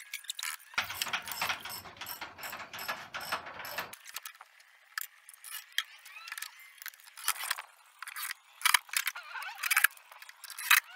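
A rapid, irregular run of clicks and knocks as pallet-wood boards are handled and fitted on a roof.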